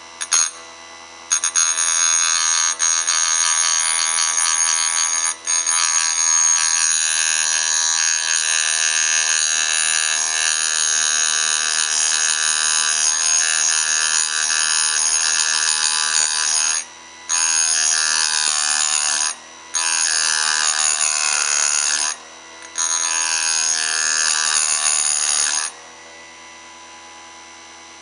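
Grinder on a Bridgeport mill cutting a transmission gear's dogs: a loud, high-pitched grinding whine that starts a moment in, breaks off briefly three times in the second half and stops shortly before the end, leaving a lower motor hum. The dogs are being ground clean because their rounded-off edges let the KX500 jump out of third gear.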